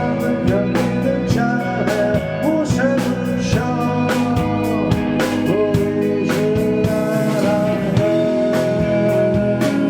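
Rock band playing live: a voice singing held notes over electric guitars, bass and regular drum hits.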